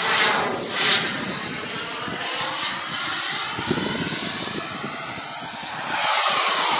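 Fighter jet's engine noise as it flies past overhead: a continuous rushing noise with slowly sweeping changes in pitch, quieter through the middle and louder again about six seconds in.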